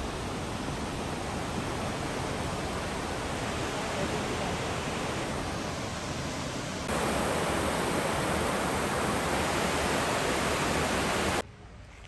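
Rushing water of a forest creek below the trail: a steady, even rush that grows louder about seven seconds in and cuts off suddenly near the end.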